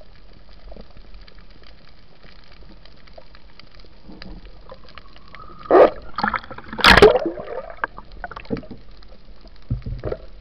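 Underwater sound heard through the camera housing: a steady hiss full of faint small clicks, broken about six and seven seconds in by two loud gurgling rushes of air bubbles, the second the louder, with smaller bubbling after.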